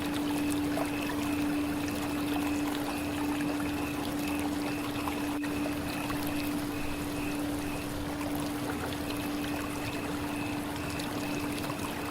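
Running water flowing steadily and evenly, a continuous rushing with no breaks, with a steady hum underneath.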